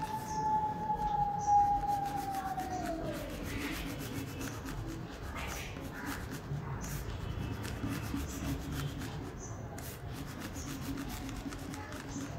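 Blue crayon rubbed back and forth across paper in quick scratchy strokes, shading in a drawing. For the first three seconds a steady tone sounds behind it, then slides down in pitch and fades.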